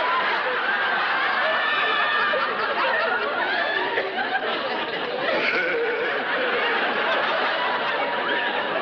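Sitcom laugh track: many people laughing together.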